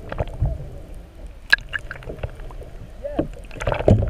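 Muffled underwater sound heard from a submerged camera: water gurgling and sloshing with scattered clicks and knocks, and faint muffled voices from above the surface.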